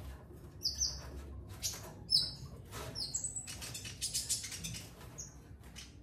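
A caged bird giving short, sharp, high chirps in quick succession while fluttering and rustling in its cage as a hand reaches in to catch it.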